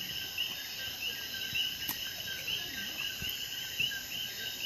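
Crickets chirping in a steady rhythm, about four chirps a second, over a high, even insect hiss. A faint click comes about two seconds in.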